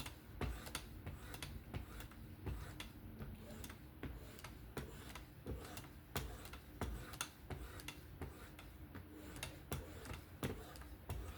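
Faint, irregular light clicks and taps, about two or three a second, from a knife being worked on a Work Sharp Professional fixed-angle sharpener.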